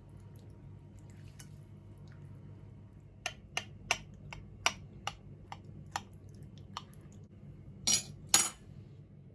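Kitchenware being handled: a run of about nine short, sharp clinks and knocks, then two louder clattering hits near the end, over a steady low hum.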